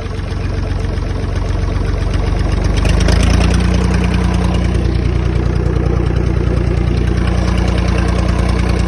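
1981 David Brown 885 tractor's three-cylinder diesel engine revving up about three seconds in as it pulls away, then running steadily under load.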